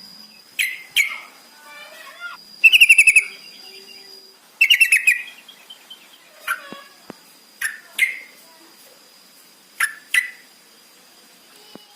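Yellow-vented bulbul (trucukan) calling: bubbly, rapid chattering phrases, the loudest about three seconds in, then shorter sharp single calls spaced a second or two apart. A faint steady high tone runs underneath.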